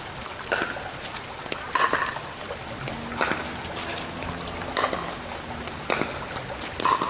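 Pickleball rally on a wet court: a series of sharp pops of paddles striking the plastic ball, about one every second or so, with shoes splashing and squeaking on the rain-soaked surface.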